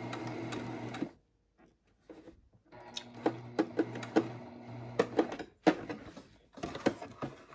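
Electric sewing machine stitching a seam through layered fabric, running for about a second, stopping, then running again for about three seconds. A few sharp clicks and knocks follow as it stops near the end.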